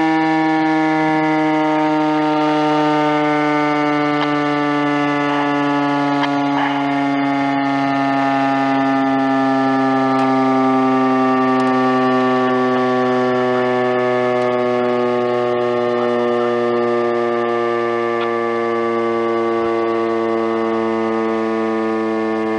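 Federal Signal STH-10 outdoor warning siren winding down: a loud, steady siren tone sliding slowly and evenly lower in pitch, with a second, lower tone falling alongside it.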